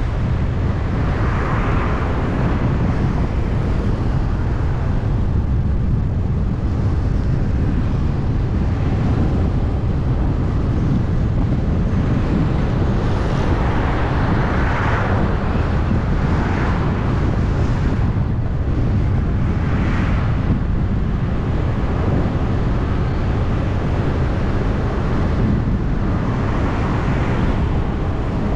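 Steady wind rumble on the microphone and road noise from a vehicle driving along a city street, with a few brief swells as traffic passes.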